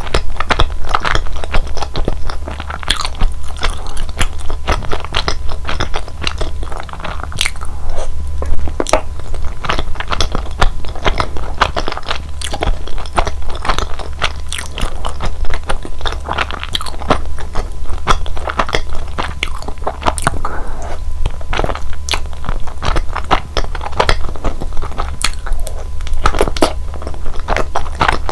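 Close-miked chewing and biting of mitarashi dango, chewy glutinous rice dumplings in a sticky sweet soy glaze, with many sharp mouth clicks throughout.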